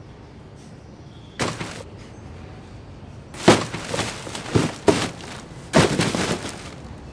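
Black plastic garbage bags rustling and crinkling as a bag is set down onto a pile of bags and shoved into place. There is a short rustle about a second and a half in, then two clusters of louder crinkling with dull thumps in the second half.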